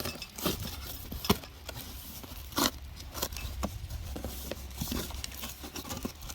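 Cardboard shipping box being handled and opened: irregular clicks, knocks, scrapes and tearing of cardboard.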